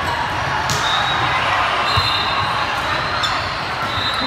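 Indoor volleyball rally in a busy multi-court gym: a sharp ball contact about a second in and a duller thump around two seconds, with short sneaker squeaks. Underneath is a steady din from the other courts, echoing in the large hall.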